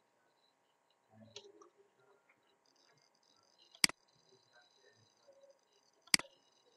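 Two sharp computer mouse clicks, a little over two seconds apart, over faint room noise.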